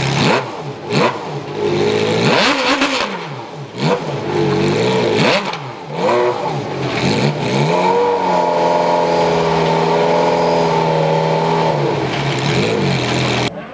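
Ferrari 348's V8 engine revved while standing still: several quick throttle blips rising and falling, then held at steady high revs for about four seconds and let fall back near the end.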